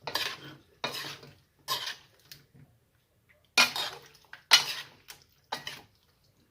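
A metal utensil scraping and clinking against a bowl in short, separate strokes as sauce and seasonings are mixed into chicken wings. There is a pause of about a second near the middle.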